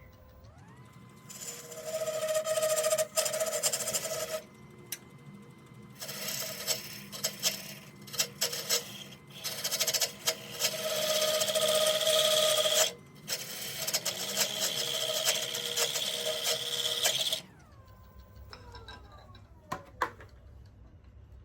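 Wood lathe motor whining up to speed, then a parting tool cutting into spinning goncalo alves hardwood in three loud stretches of scraping. Near the end the lathe is switched off and its whine falls away.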